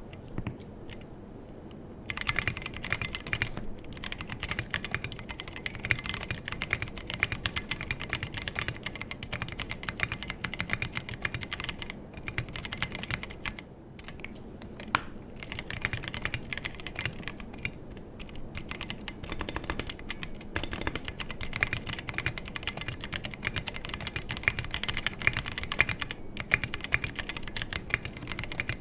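Typing on a Tofu60 60% mechanical keyboard with stock Halo True tactile switches, a brass plate, PBT SA-profile keycaps and no foam, set directly on the desk without a deskmat. Rapid, continuous keystrokes begin about two seconds in, with a brief pause about halfway through.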